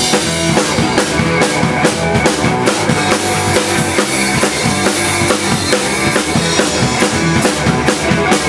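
Rock band playing live, with drum kit, electric guitar and bass guitar together, on the instrumental intro of a song without vocals. Drums keep a steady driving beat through it.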